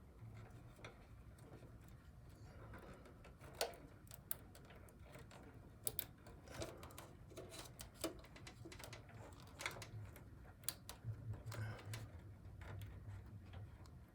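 Faint, irregular clicks and taps of small plastic and metal parts being handled inside a desktop computer case while a power-supply fan connector is fitted, over a faint steady low hum.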